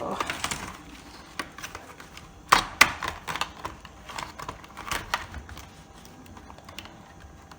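Plastic clicks and creaks from a laptop's bottom case being pried at its clips with fingernails: a handful of sharp clicks, the loudest about two and a half to three seconds in, over soft handling noise. The case will not release because one screw is still in place.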